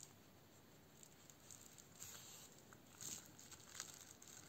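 Near silence with a few faint rustles from about halfway in: crocheted toy wings and yarn being handled during hand-sewing. The large wings hold a crinkly baking-sleeve film insert.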